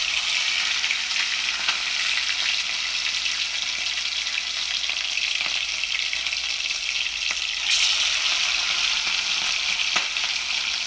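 Chicken frying in hot oil with garlic and pepper in a pot: a steady, loud sizzle with scattered crackles and popping, swelling louder about eight seconds in. This is the fry-down stage of brown stew chicken, browning the meat before it is stewed.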